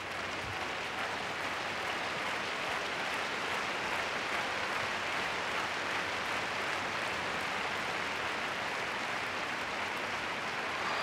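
Crowd in a large arena applauding and murmuring, a steady even wash of noise.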